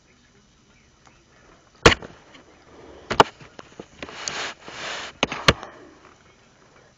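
Sharp knocks and bumps against the camera, with rustling of bedding in between, as a small dog scrambles over a girl on a bed and the camera is jostled: about four knocks, two of them close together near the end.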